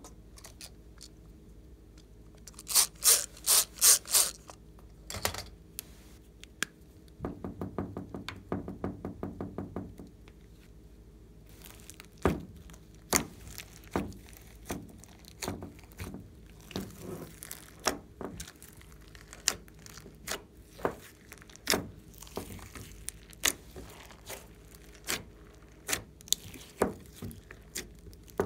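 Hands kneading and folding glossy slime mixed with clay and glitter, making sticky clicks and pops. A cluster of sharp clicks comes a few seconds in, then a fast run of clicks, then scattered pops as the slime is worked.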